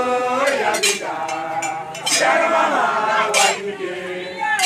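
A crowd of voices singing or calling out in loud held notes, with irregular sharp metallic clinks among them.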